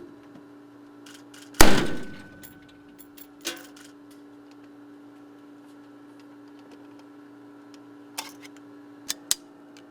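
A single gunshot about a second and a half in, loud and sharp with a short echoing tail in the room. A few light clicks follow later, over a steady hum.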